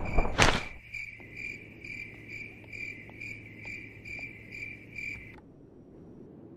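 Crickets chirping in a steady pulsing rhythm, about three chirps a second, cutting off abruptly a little after five seconds in. A brief loud noise hit about half a second in is the loudest sound.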